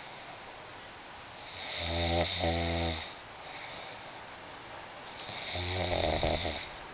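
A sleeping man snoring: two long snores about four seconds apart, each a low buzz over a breathy hiss lasting about a second and a half.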